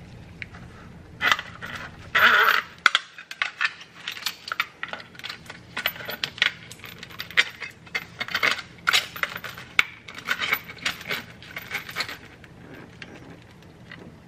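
Braided steel supply lines of a Glacier Bay kitchen faucet and its metal escutcheon plate being handled, giving an irregular string of light metallic clicks and rattles, with a louder rustling scrape about two seconds in.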